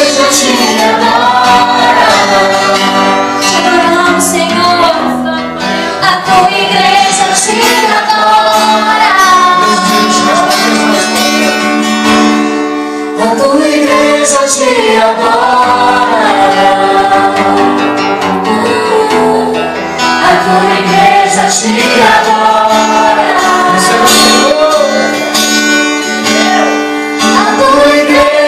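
Live gospel worship music: a woman singing lead into a microphone, accompanied by acoustic guitar and a drum kit.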